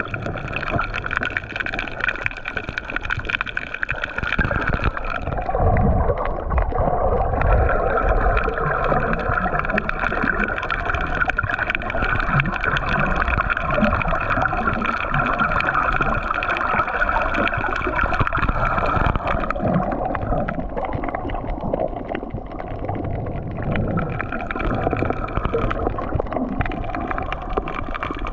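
Underwater sound picked up by a GoPro in its housing: continuous muffled water noise and gurgling, with a steady hum and uneven low rumbles.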